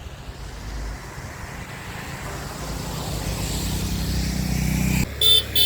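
A vehicle engine running at a steady pitch and growing steadily louder for several seconds, then cut off abruptly near the end.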